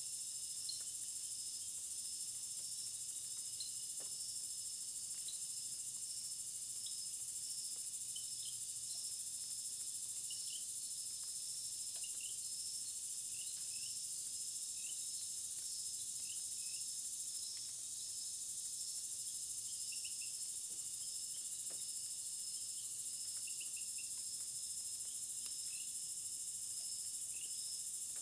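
Steady outdoor insect chorus, a continuous high-pitched trilling drone typical of crickets or katydids, with short faint chirps scattered through it.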